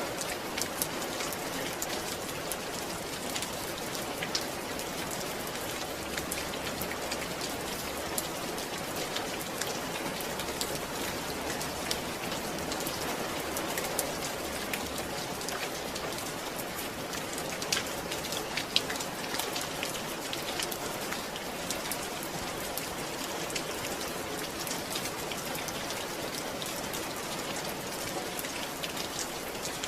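Steady rain falling, with many separate drops ticking on a surface; a few louder drops land about eighteen seconds in.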